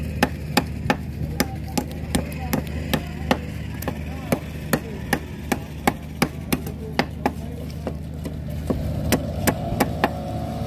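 A golok cleaver chopping fish on a round wooden block in quick, steady strokes, about three sharp thwacks a second, over a steady low hum.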